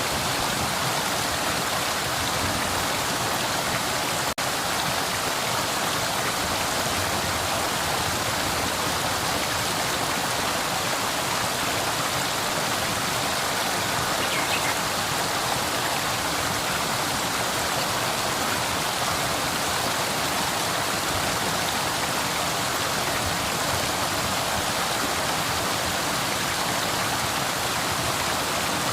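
Flowing river water making a steady rush, with a momentary dropout about four seconds in.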